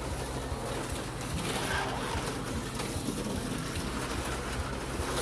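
Several HO-scale slot cars running laps just after the start: small electric motors whirring and the cars rattling along the plastic track, over a steady low hum.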